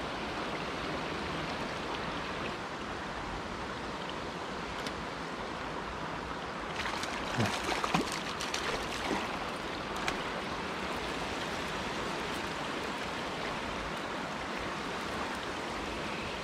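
Steady rush of running water from the creek, with a hooked brook trout splashing and thrashing at the surface for a couple of seconds about halfway through.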